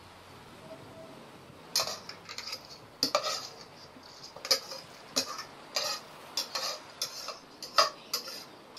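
A series of sharp kitchen clinks and knocks, roughly one or two a second, starting about two seconds in: a bowl or utensil knocking against a metal pan as rice is emptied into it.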